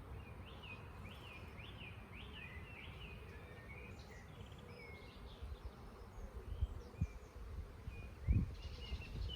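A songbird chirps in a quick series of rising-and-falling notes, about two a second, over the steady hum of honeybees at an open hive. There is a low rumble throughout and two dull thumps near the end.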